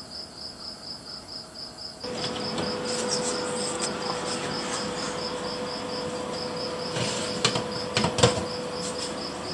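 An insect chirping in a fast, even pulse, about four a second, throughout. About two seconds in, a steady hum and hiss join it. Near the end come a few sharp knocks as a metal baking tray is pulled out of the oven.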